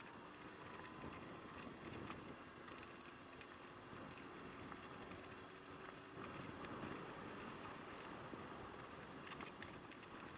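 Yamaha YZF600R Thundercat's inline-four engine running at low speed, heard faint under a steady wind rumble, with a few small ticks and knocks.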